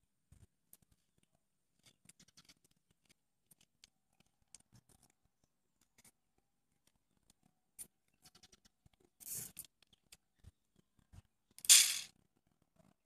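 Popsicle-stick and foam model boat being handled and turned over in the hands: faint scattered clicks and small scrapes. Near the end come two brief, louder scraping rustles, the second the loudest.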